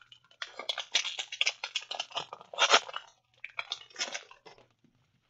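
Foil booster-pack wrapper of a Pokémon trading card pack crinkling and tearing as it is ripped open by hand. It is a run of irregular crackly rustles, loudest about two and a half seconds in, dying away a little after four seconds.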